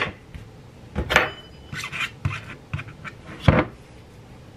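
A few light knocks and clinks of kitchen items being handled on a countertop, such as a butter knife, plate and butter dish set down and picked up, with the loudest knock about three and a half seconds in.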